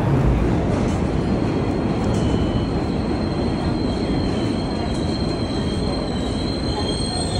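New York City subway train running at the platform, its steel wheels squealing on the rails in a steady high whine over a loud rumble.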